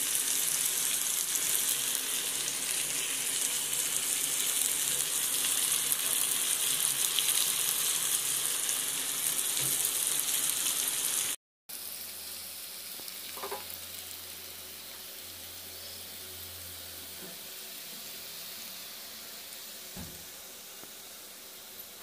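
Potato strips and green chillies sizzling as they fry in oil in a pan, a steady hiss. It is loud for the first half; after a sudden break about halfway the sizzling goes on more quietly.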